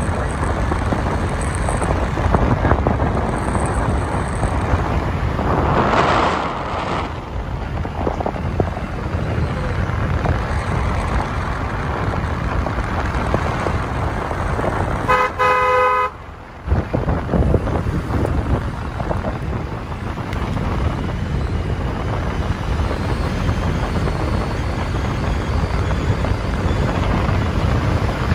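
Steady wind and road noise from a moving vehicle. About halfway through, a vehicle horn sounds for about a second, and the noise drops out briefly just after.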